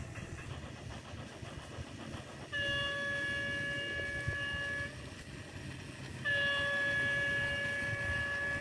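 Two long blasts of a toy train's electronic horn, a steady pitched tone each lasting about two and a half seconds, the second starting about a second and a half after the first ends, over a low continuous rumble.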